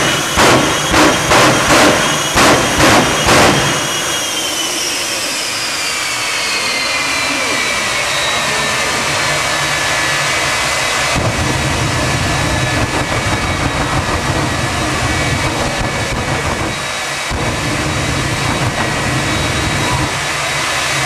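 Jet engine of a jet-powered pickup truck: for the first few seconds a rapid series of loud pops, about three a second, as flame bursts shoot from its stack. Then a steady turbine whine that falls in pitch and settles, with a deeper rumble joining about halfway and the pitch rising again near the end.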